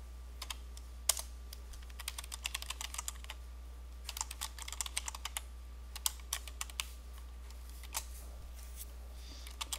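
Computer keyboard typing in quick runs of keystrokes with short pauses between them. A steady low hum sits underneath.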